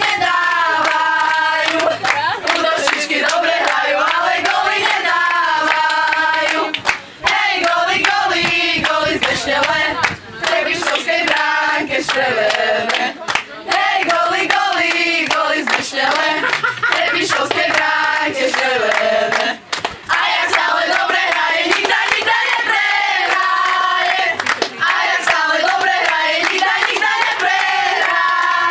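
A group of young women singing a chant together while clapping their hands along with it.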